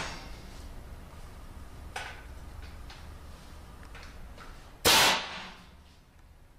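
Pneumatic nailer firing a threaded ballistic nail screw through insulation into a steel stud: one loud sharp shot about five seconds in. A much lighter click comes about two seconds in.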